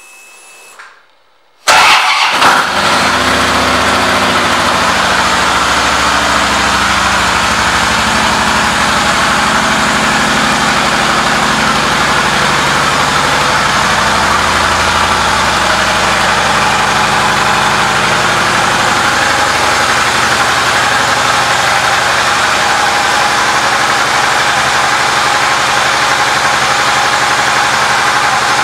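2012 Harley-Davidson Police Electra Glide's Twin Cam 103 V-twin starting up about two seconds in, then idling steadily, the idle note shifting a little around the middle.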